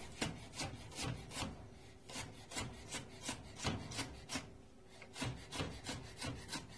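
Chef's knife cutting fresh ginger into julienne strips on a wooden chopping board: a steady series of light knocks, about two or three a second, with a couple of short pauses.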